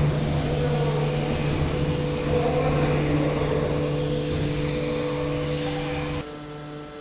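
Large earthquake shake table running a seismic test that replays the shaking of an intensity 6-strong earthquake: a loud, steady machine noise with a low hum. The noise cuts off suddenly about six seconds in, leaving only a quieter steady hum.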